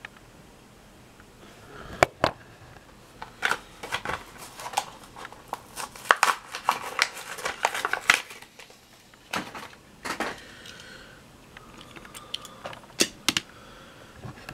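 Plastic blister packaging of a Hot Wheels carded car being cracked open and handled: a run of sharp cracks, clicks and crinkles, loudest in the middle.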